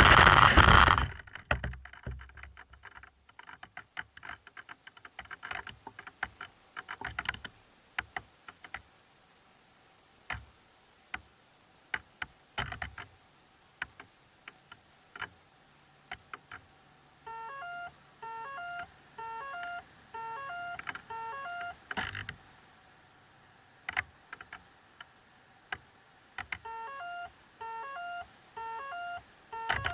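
A loud rushing noise cuts off about a second in, followed by scattered sharp clicks and then a repeating run of short electronic beeps, each made of several tones sounding together, about two a second.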